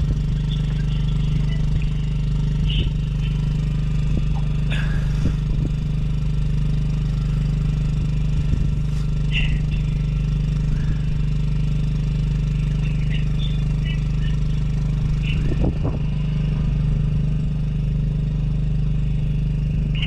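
An engine runs steadily, giving a continuous low drone, with a few faint knocks and brief high chirps over it.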